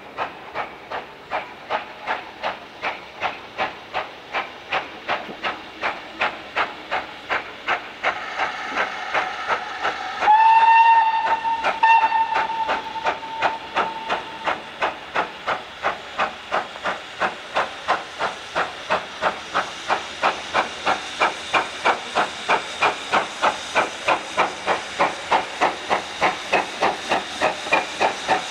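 GWR Manor-class two-cylinder steam locomotive 7812 'Erlestoke Manor' working a train, its chimney exhaust beating evenly at about three beats a second and growing louder. About ten seconds in its whistle sounds for a few seconds, loudest at first, then fading.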